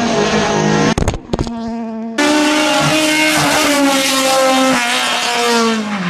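Rally car engines running hard at high revs, with a few sharp knocks about a second in. After a sudden switch to another car's engine, the revs hold steady and then drop near the end as the driver lifts off.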